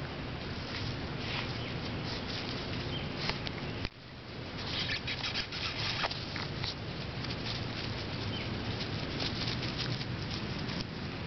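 Boston terrier puppies scampering through grass: irregular rustling and pattering of small paws.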